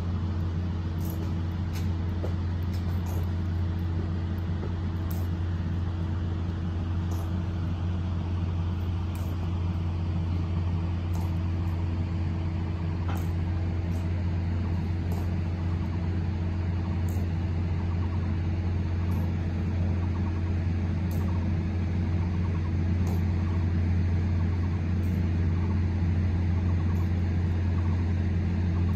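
Steady low droning hum, with faint sharp clicks about once a second from an honor guard's slow marching boot steps.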